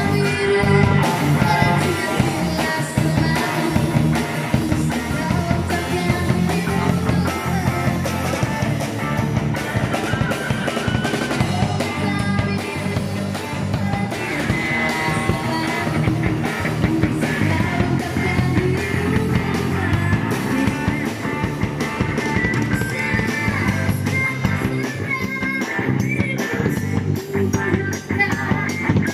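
Live band: a woman singing into a microphone over electric guitar and a drum kit with cymbals.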